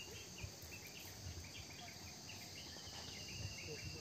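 Crickets trilling in a steady, high-pitched outdoor insect chorus, with scattered short chirps above a faint low rumble.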